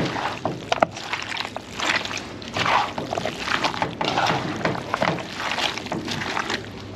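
Seasoned meat being stirred in a hot oiled cooking pot: wet scraping and sloshing strokes in irregular swells about once a second, with a few sharp clicks.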